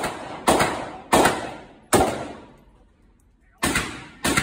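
Six gunshots at an uneven pace, each a sharp crack followed by a long echo in an indoor shooting range.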